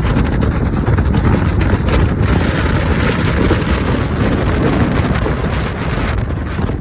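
Steady rumble and rush of a vehicle driving, with wind buffeting the microphone.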